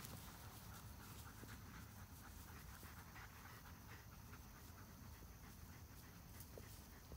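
Faint panting of a long-coat German Shepherd, with light scattered rustling as the dogs move through tall meadow grass.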